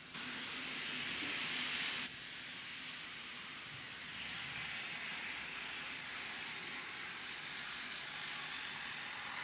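HO scale model locomotive running around the track: a steady whirring hiss from its electric motor and its wheels on the rails. It is louder for the first two seconds, then settles to a slightly quieter, even level.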